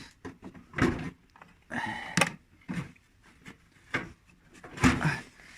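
Clunks and scraping of the magnetic rotor of a Haier direct-drive washing machine motor being pulled off its stator against the magnets' pull: a few separate sharp knocks, the loudest near the end.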